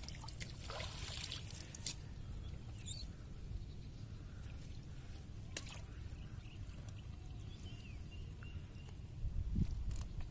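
Water trickling and dripping off a wet fishing net as it is hauled up over the side of a wooden boat, with a few sharp clicks from handling the net. A steady low rumble runs underneath.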